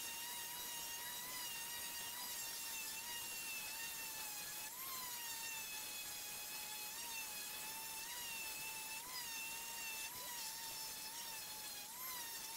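Electric random orbital sander running while sanding a pallet-wood slat: a steady high whine, with brief slight rises in pitch every second or two.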